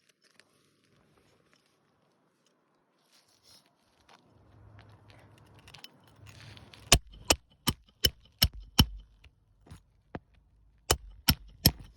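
Hammer blows driving roofing nails into asphalt shingles: a quick run of six sharp strikes about three a second, then three more near the end, after some faint rustling as the tabs are handled.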